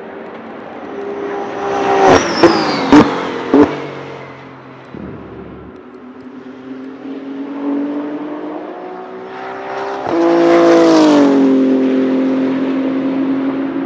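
BMW M4 GT3 race car with a 3.0-litre twin-turbo inline-six, running at speed past the listener. About two to four seconds in it goes by with a falling pitch and four sharp bangs. About ten seconds in it comes through loud again, pitch climbing and then dropping as it passes.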